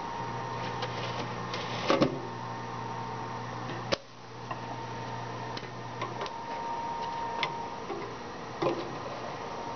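Live ridgeback shrimp flipping and tapping against a stainless steel bowl: scattered sharp clicks and taps, the loudest about two seconds in and another just before four seconds, over a steady low hum that stops about six seconds in.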